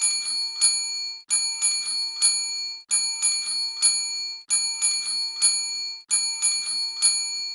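Prayer bell ringing in quick strokes: a short run of several strikes that repeats exactly about every one and a half seconds, five times over, then cuts off suddenly.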